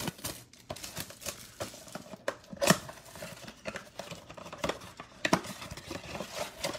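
A Panini Mosaic basketball blaster box being opened by hand and its card packs pulled out and set down: irregular rustling, scraping and tapping, with one sharper snap about two and a half seconds in.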